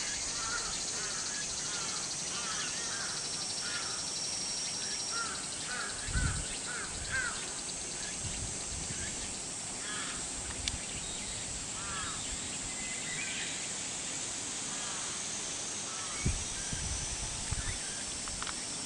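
Crows calling in a quick series of short calls that thin out to a few scattered ones after about eight seconds. A steady high hiss of outdoor background runs under them, with a couple of low thumps.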